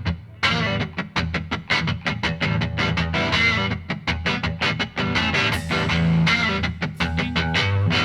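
Background music: rapidly picked electric guitar with a distorted tone.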